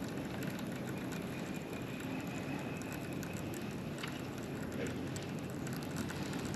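Fishing reel being cranked steadily to retrieve a spinnerbait: a low, even mechanical whirr with faint clicks.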